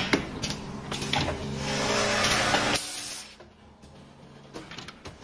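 Automatic broom-handle assembly machine running: clicks and knocks from its pneumatic cylinders and conveyor over a steady motor hum, with a hiss of air that builds up. About three seconds in the sound drops much quieter, leaving faint clicks.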